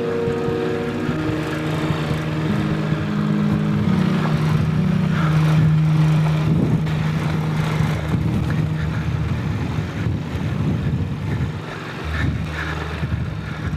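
A heavy adventure motorcycle's engine pulls up a steep, loose, rocky climb. The revs rise a few seconds in, then fall back to a low, labouring pull near the end. Knocks and rattles from stones and the bike come through over the engine.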